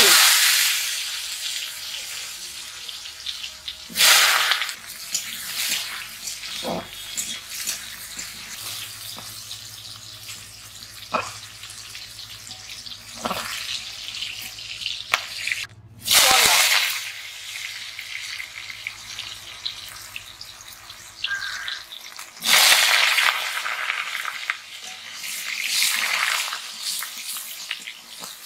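Cut radish, potato and pointed gourd frying in hot oil in a metal wok. Each handful dropped in sets off a loud sizzle, about four times, and between them the oil keeps sizzling under the clinks and scrapes of a metal spatula against the pan.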